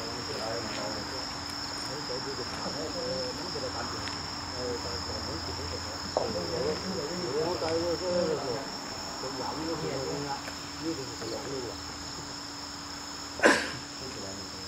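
Steady, unbroken high-pitched insect chirring, with one sharp crack near the end.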